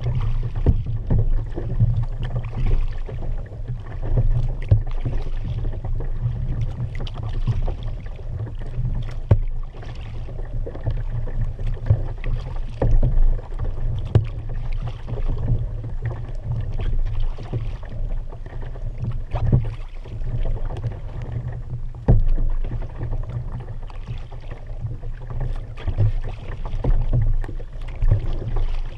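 Kayak being paddled: the paddle dips and splashes in uneven swells, and water washes along the hull, over a steady low rumble, with occasional sharp knocks.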